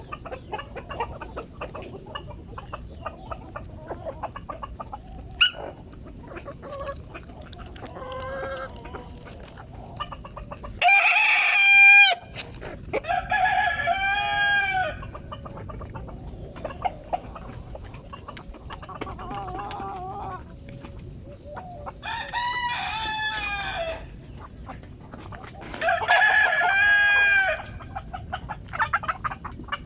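Kienyeji chickens: a rooster crows four times, each crow lasting a second or two, with hens clucking softly in between.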